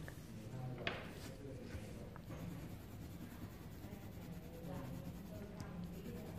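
Coloured pencil scratching across paper as it shades in a drawing, with a sharp tap about a second in.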